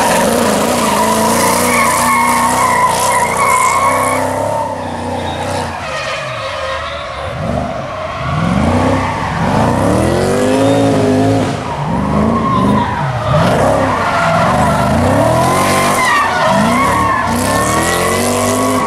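LS2 V8 engine of a BMW E46 M3 drift car revving up and down over and over, with the rear tyres squealing and skidding as it slides through drifts. The revs swing most in the second half.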